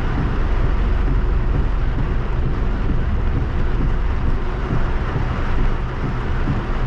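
Strong rain beating on a moving car, heard from inside the cabin along with the car's engine and tyres on the wet road: a steady rushing noise over a deep rumble.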